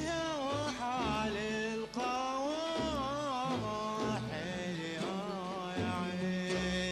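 Kuwaiti sawt music: a male singer holds long, wavering melismatic notes over oud, violin, qanun and double bass.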